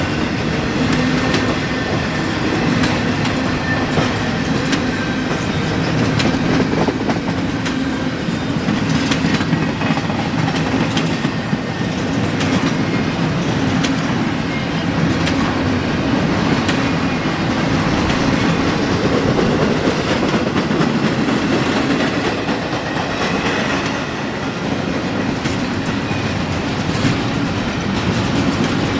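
Freight train cars rolling past at a steady pace: a continuous rumble of steel wheels on rail with repeated clickety-clack clicks over the rail joints.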